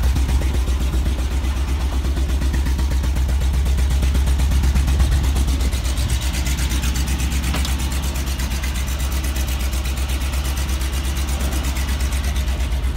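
Mercedes car engine idling steadily through a newly fitted exhaust, with an even low exhaust pulse; the exhaust is still leaking at a joint.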